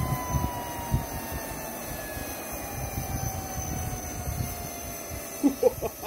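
Homemade jet engine spinning down: a thin whine that falls steadily in pitch over a low rumbling haze.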